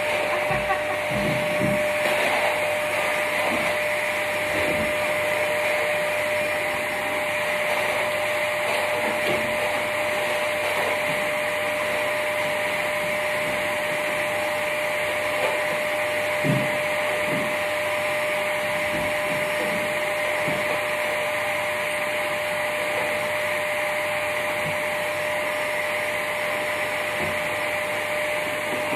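Canister vacuum cleaner motor running steadily with a constant whine, and a few light knocks over it.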